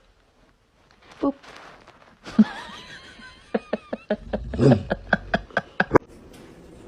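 A person laughing in a quick run of short bursts, starting about halfway through.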